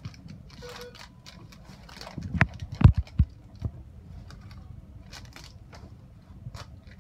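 Gloved hands peeling open and handling the paper-and-plastic wrappers of sterile 2x2 gauze and alcohol wipe packets: light crinkling and clicking, with a few sharp thumps about two to three and a half seconds in.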